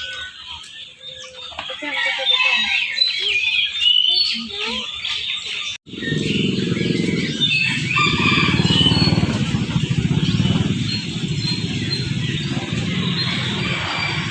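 Many songbirds chirping and twittering all at once. About six seconds in the sound cuts out for an instant, then a steady low din of crowd and engine noise comes in under the chirping.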